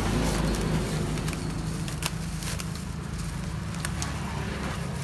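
Thin plastic bag crinkling and crackling as it is packed with crisp pancakes and twisted shut, with scattered sharp crackles. A steady low engine hum runs underneath.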